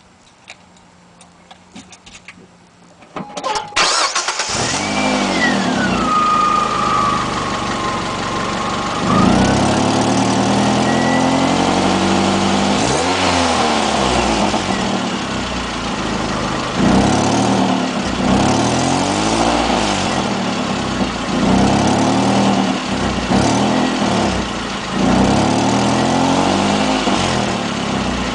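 Mazda Protege5 engine cranked and started about three and a half seconds in, with a whine that falls in pitch for a few seconds after it catches, then idling with a series of short throttle blips. The exhaust is being checked for a suspected header or exhaust leak.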